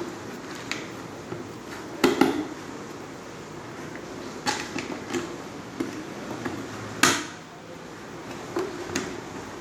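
Scattered clicks and knocks of a vacuum cleaner's plastic housing and its small screws being handled and fitted during reassembly, with the loudest knock about seven seconds in.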